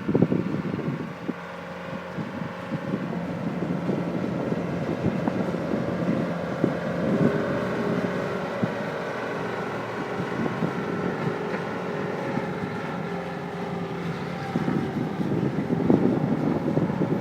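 Caterpillar skid steer's diesel engine running steadily, with wind buffeting the microphone.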